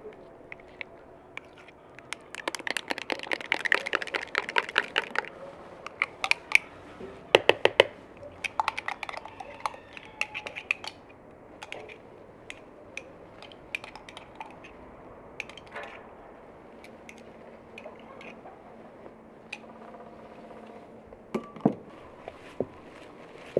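A metal spoon clinking quickly against a glass in a run of rapid strokes, then scattered clicks, taps and soft rubbing as hands work dough in a ceramic mixing bowl, with a couple of knocks near the end.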